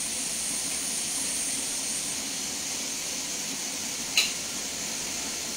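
Steady hiss of a two-burner gas stove's lit burners with covered pots simmering on them, and a brief sharp tick about four seconds in.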